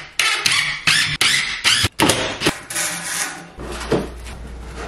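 DeWalt cordless drill driving screws into the wall in short bursts, with sharp clicks between. Near the end, quieter rustling and knocks of wrapping-paper rolls being slid into a wall-mounted holder.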